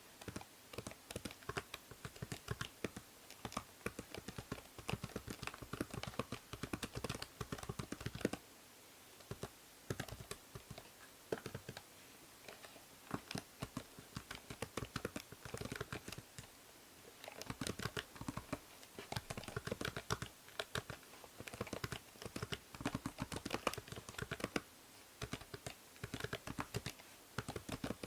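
Typing on a computer keyboard in quick runs of key clicks, broken by short pauses, over a steady background hiss from a binaural microphone.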